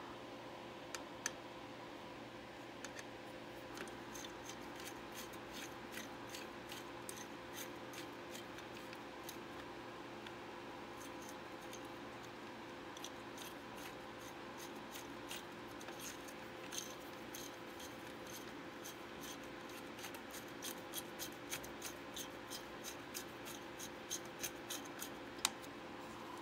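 Scattered light clicks and ticks of small computer parts being handled while fitting a CPU cooler and its back plate onto a motherboard, with two sharper clicks about a second in and a quicker run of clicks near the end, over a steady faint hum.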